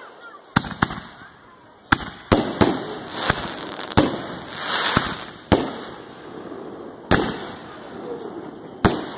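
Aerial fireworks bursting overhead: a string of about ten sharp bangs, unevenly spaced, with a hissing swell that rises and fades around the middle.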